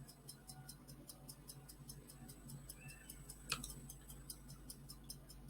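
Faint, fast, even ticking at about five ticks a second over a low steady hum, with one sharper click about three and a half seconds in.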